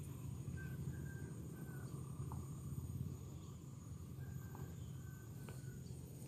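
Quiet outdoor ambience: a steady high insect whine with two runs of short, faint chirps, one about half a second in and one past four seconds, over a low rumble.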